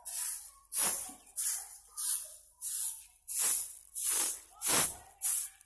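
Stiff stick bundle broom sweeping over dry, sandy soil: a steady run of about eight quick scratchy swishes, one stroke every half second or so.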